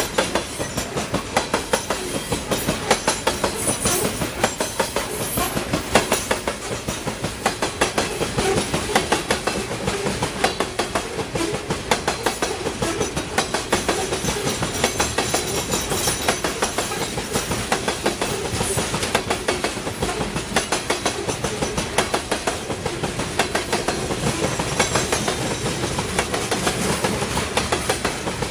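Steel wheels of a passing coal train's gondola cars clicking over a jointed rail. Each wheelset knocks across the rail joint in turn, making a continuous clickety-clack rhythm.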